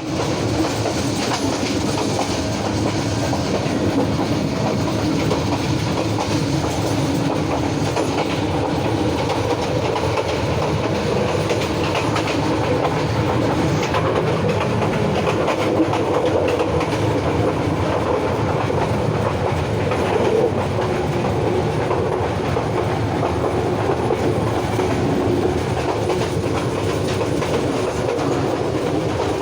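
Bijoy Express passenger train running, heard from inside a carriage: a steady rumble and rattle of the coach, with the clatter of wheels over the rails.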